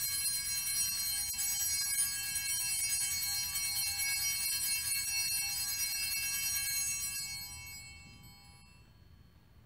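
Altar bells rung at the elevation of the chalice after the words of consecration: a bright ringing of many high tones that holds steady for about seven seconds, then dies away.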